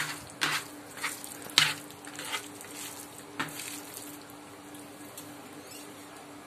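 Bare hands squishing and mixing mashed potato with chopped raw onion on a plastic plate, with a few sharper taps and scrapes against the plate in the first three and a half seconds, then softer. A steady low hum sits underneath.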